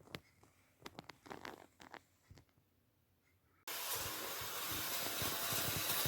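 Faint clicks and rustles of handling, then a little over halfway through a loud, steady rushing whir starts suddenly and slowly grows louder, with irregular low knocks under it: the vintage Märklin HO locomotive running on its track.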